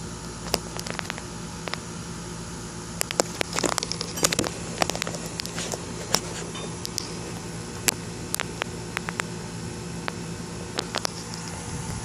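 Irregular sharp clicks and crackles, thickest from about three to five seconds in and again near the end, over a steady low hum and hiss.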